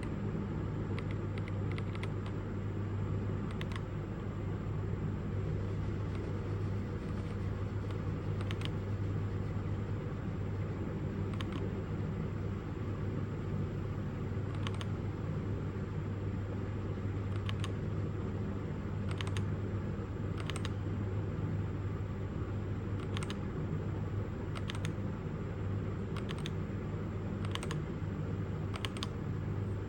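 Single keystrokes on a JEDEL KL-141 mechanical keyboard with red switches, one click every one to three seconds, as the lighting modes are stepped through. A steady low hum lies underneath.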